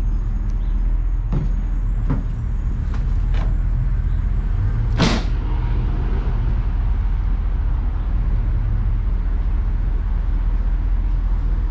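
A truck engine idling with a steady low rumble. A few light clicks come early, then a sharp metal clunk about five seconds in, like the service body's door or latch.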